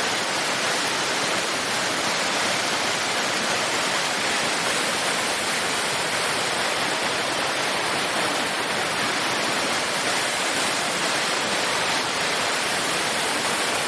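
Steady rushing and splashing of the man-made waterfall in Waterfall Garden Park pouring into its pool.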